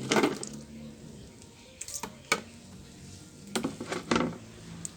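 Knife chopping tomato leaves on a cutting board in short runs of sharp strokes: a few at the start, two single chops about two seconds in, and another quick run near the end.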